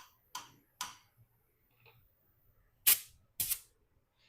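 Sharp metallic clicks from valve spring work on an LS cylinder head: three light clicks in the first second, then two loud snaps about half a second apart near three seconds in, as a spring is compressed, released and reseated.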